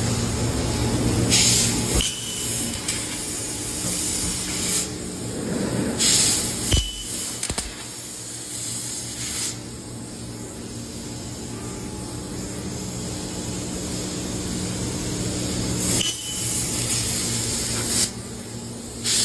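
CNC fiber laser cutting machine running, with a continuous hiss of gas over a steady low hum. Several times a louder, high-pitched blast of hiss lasts under a second to about a second.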